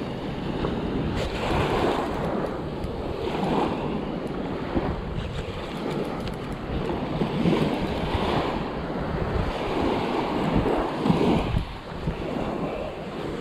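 Small surf breaking and washing up the sand in uneven swells, with wind rumbling on the microphone.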